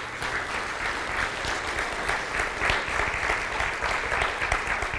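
Congregation applauding, steady clapping from many hands.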